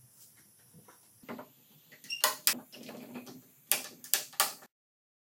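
Steel bar clamps being set across a wooden glue-up: the jaws clack and rattle along the bars, with several sharp clicks about a second apart, then the sound cuts off suddenly.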